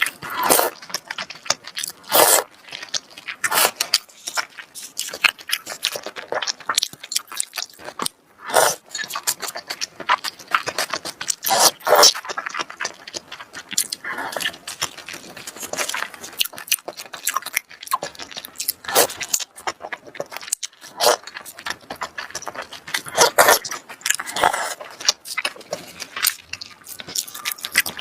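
Close-miked eating sounds of seafood: continual chewing, biting and wet crunching, with many sharp irregular clicks, crackles and smacks.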